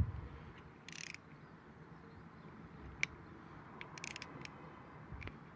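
Ratchet spanner clicking in two short runs, about a second in and again about four seconds in, with a single click in between, as the pinch bolt of the motorcycle gear lever's clamp is tightened to close the gap in the clamp.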